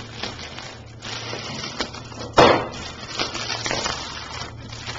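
Clear plastic shrink-wrap being torn and crinkled off a cardboard product box, a run of crackles with one loud sudden rip about two and a half seconds in, over a faint steady low hum.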